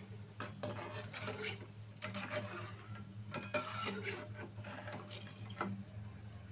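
Steel slotted skimmer scraping and clinking against a non-stick frying pan while lifting fried kurkure strips out of hot oil, with a light sizzle of frying underneath.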